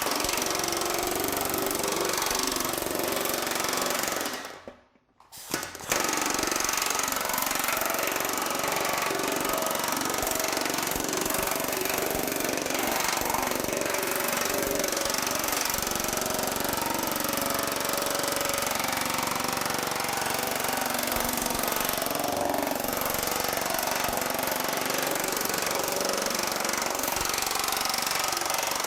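Pneumatic TM Technologies air power hammer pounding rapidly on 1100 aluminum sheet, shrinking the metal with its dies. The hammering stops for about a second some five seconds in, then starts again and runs on steadily.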